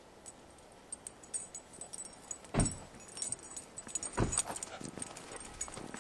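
Light metallic jingling of a tracking dog's collar hardware as she moves along the blood trail, with two dull thumps about two and a half and four seconds in.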